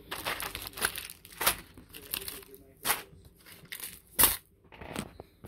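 Clear plastic button packets crinkling and rustling as they are handled and shuffled, in short irregular crackles, the loudest about four seconds in.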